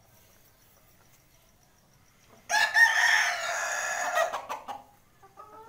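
Rooster crowing once: a loud call of about two seconds, beginning about halfway through after a near-quiet start. Softer hen clucking follows near the end.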